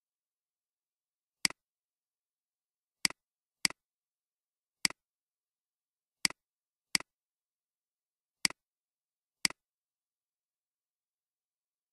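Computer mouse button clicking eight separate times at uneven intervals, each click a sharp press followed at once by a softer release, with dead silence between.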